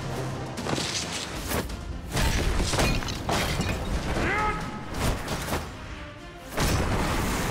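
Fight-scene soundtrack: dramatic background music over sudden whooshes and impacts, with a shattering crash among them.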